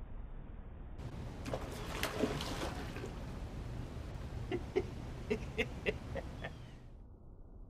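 A tarpon bursts out of the water beside the dock with a loud, splashy rush, followed a couple of seconds later by a man's short bursts of laughter after the startle.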